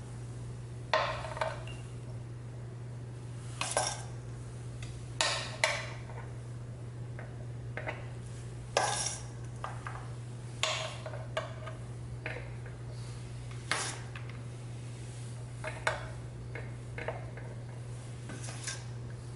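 Metal spoon scraping and clinking against a stainless steel mixing bowl and a mini muffin tin while scooping and packing cauliflower tot mixture, in irregular strokes every second or two, over a steady low hum.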